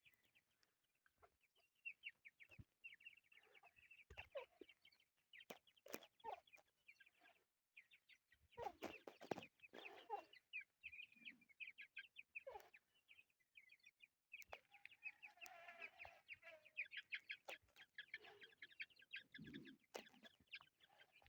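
Chukar partridge chicks peeping: runs of quick, short, high cheeps, with a few lower, louder calls or sounds among them.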